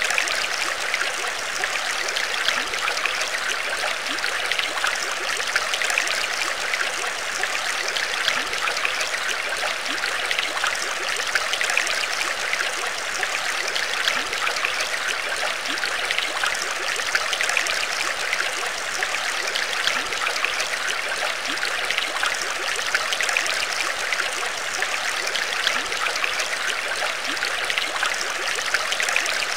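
Steady trickling, bubbling water, even throughout.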